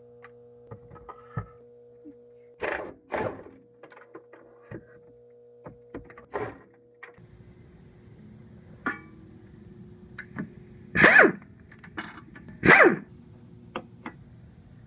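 Air impact wrench with a 12 mm deep socket hammering in short bursts of under half a second on the rear strut bolts, the two loudest about a second and a half apart near the end, with small clicks and knocks of tools between.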